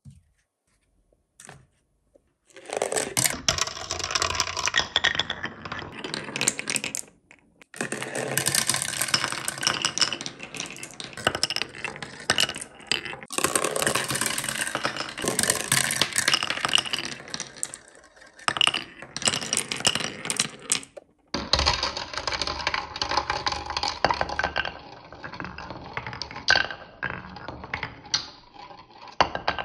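Glass marbles rolling and rattling down a white plastic multi-lane channel track and spinning around an orange plastic spiral funnel, a dense run of clicks against the plastic. It starts a couple of seconds in and breaks off briefly a few times.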